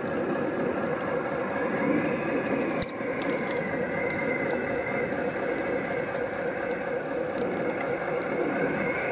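Electric motors and hydraulic pumps of radio-controlled construction models whining steadily, the whine rising and falling in pitch as the machines work, with scattered small clicks.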